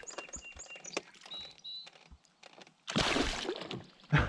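Water splashing for about half a second, three seconds in, as a released smallmouth bass kicks free of a hand at the surface. Birds chirp faintly in the background before it, and a short knock follows near the end.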